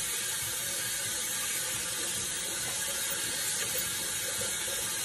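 Tap water running steadily into a stainless steel sink while hands are washed under the stream.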